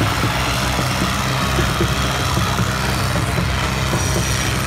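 Farm tractor's diesel engine running steadily as the tractor spins in tight circles on loose dirt.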